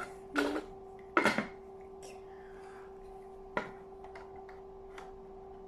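Light clicks and clatter of a plastic jar and small plastic toy figures being handled, a few sharp separate clicks. Two brief louder sounds come in the first second and a half, over a faint steady hum.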